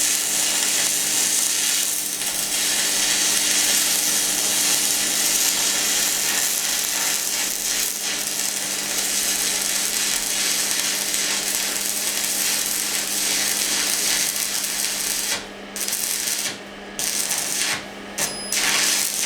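Stick-welding arc from an inverter welder crackling steadily at maximum current, about 180 A, a load test of the repaired machine. About three quarters of the way in, the arc breaks off and restrikes several times in short bursts before stopping. A faint steady hum runs underneath.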